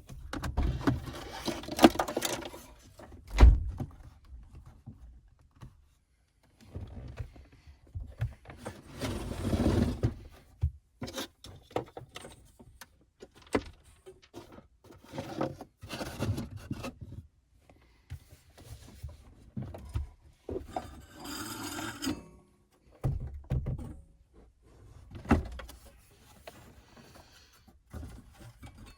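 Irregular handling noises as objects are moved and set down in a small enclosed space: scattered thunks and clicks, with a sharp knock about three seconds in, and several stretches of rustling and scraping.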